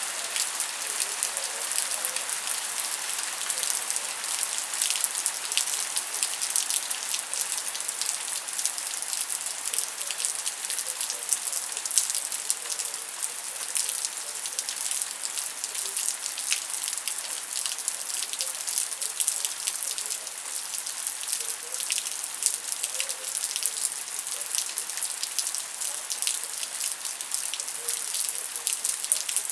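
Steady rain falling on leaves: a dense patter of individual drops over a constant hiss.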